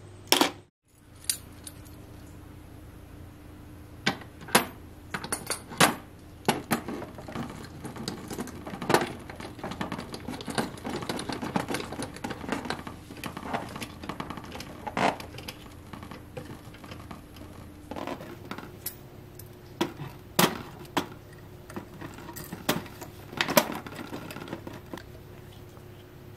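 Small steel hardware (hex nuts, square plate washers and threaded rods) clinking and clicking sharply at irregular intervals, with lighter rattling between, as nuts are fitted and screwed on by hand.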